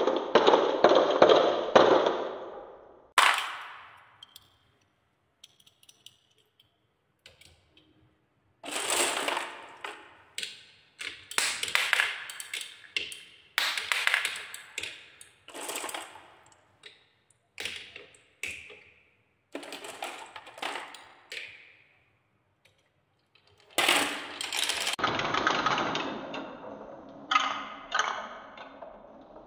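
Small coloured balls rolling and clattering down wooden marble-run tracks, a rapid ticking as they run over the wooden slats and curves. It comes in a string of short runs with quiet gaps between, the longest and loudest at the start and another long run near the end.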